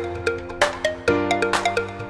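Background music: electronic tune with plucked-sounding notes, a steady beat and a sustained bass note that changes about every two seconds.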